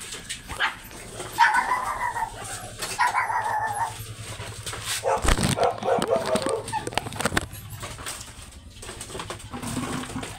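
A dog whining and barking, two drawn-out calls in the first few seconds, then shorter ones about halfway through. Knocks and a thump from the phone being carried.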